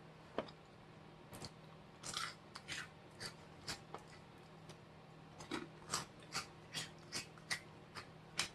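Faint crunching of a mouthful of crunchy spicy snack chips being chewed: scattered crackles at first, then an even chewing rhythm of about two to three crunches a second in the second half.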